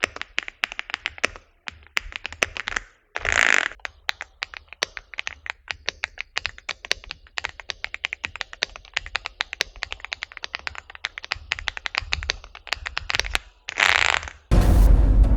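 Fast typing on an Aula mechanical gaming keyboard: a dense run of key clicks. It is broken twice by a short hiss-like swish, and a loud, deep sound lasting about a second comes near the end.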